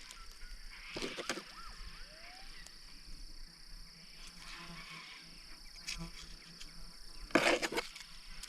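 Steady high insect drone, with short scraping knocks of digging into hard clay ground. The loudest knock comes about seven and a half seconds in and lasts about half a second, and a few brief rising chirps sound about a second in.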